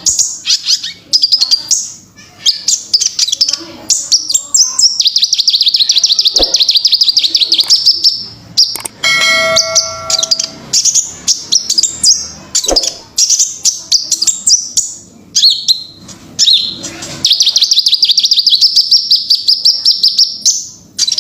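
Kolibri ninja (sunbird) singing: rapid, high-pitched twittering with long, fast trills, twice running for several seconds. A short steady ringing tone sounds about nine seconds in.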